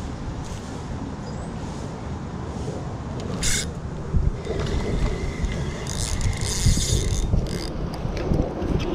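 Steady low rumble of wind on the microphone, with a brief hissing burst about three and a half seconds in and a longer one from about six to seven and a half seconds in.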